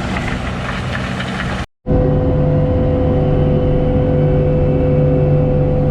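Tracked skid steer's diesel engine running, with a short break about two seconds in. After the break it runs louder and steady, with a strong constant hum.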